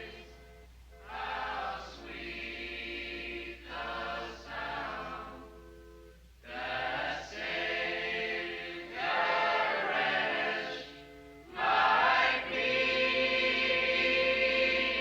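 Several voices singing together as a choir, in held-note phrases broken by short pauses, getting louder in the last few seconds, over a faint steady low hum.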